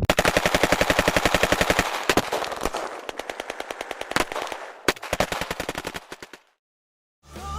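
Airsoft guns firing on full auto: a fast burst of about a dozen shots a second for roughly two seconds, then shorter, scattered bursts. The firing cuts off suddenly about six and a half seconds in.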